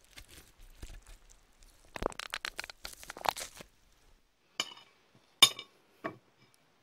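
A short run of crisp crunching and crackling, then three sharp clinks of a metal knife and fork against a plate, the middle one loudest and ringing briefly.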